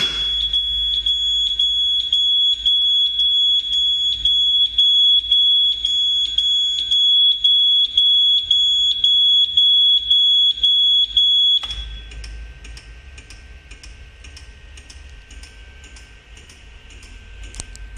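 Horing Lih AHC-871 fire alarm control panel's buzzer sounding a loud, steady high-pitched tone with brief dips about twice a second. It cuts off suddenly about two-thirds of the way in as the buzzer is silenced, and faint regular ticking goes on at the same pace.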